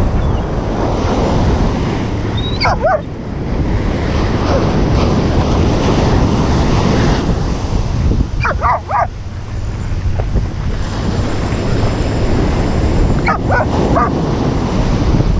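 Surf breaking and washing up the sand, with wind buffeting the microphone. A dog barks in three short runs: a few seconds in, around the middle, and near the end.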